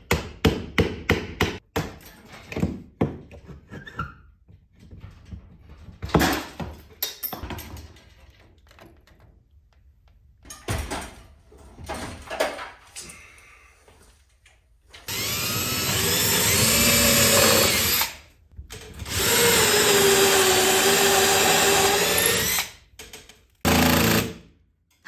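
Ridgid cordless drill/driver running in three long bursts in the second half, its motor pitch shifting as the trigger is eased. Before that come rapid clicks and clatter of hardware being handled.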